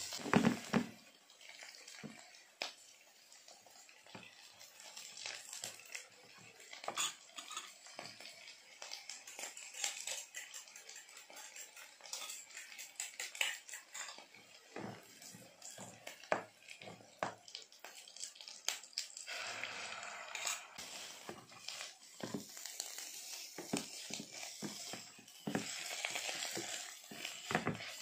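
A spatula stirring and scraping food in a cooking pot, with scattered clicks and knocks of utensils and a louder clunk at the very start. A faint sizzle comes up at times.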